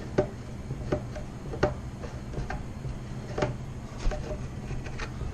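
A series of light, sharp taps, about one a second and slightly irregular, over a low steady hum.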